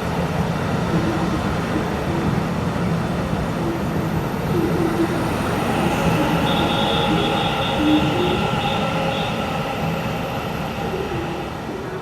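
Taiwan Railway EMU900 electric multiple unit running through an underground station: a steady loud rumble of wheels on rail. About halfway in, several steady whining tones join the rumble, with a quick run of high beeps over a few seconds.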